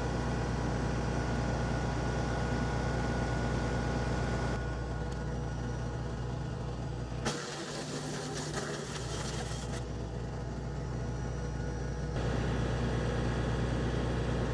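Kubota L3560 diesel tractor running a WoodMaxx WM-8M PTO wood chipper at steady speed. About seven seconds in, a sharp crack and a couple of seconds of harsh crackling noise come from a branch being chipped. The sound changes abruptly several times, where clips are joined.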